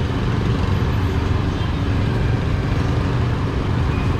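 Steady street-market din dominated by a constant low traffic rumble, with no single event standing out.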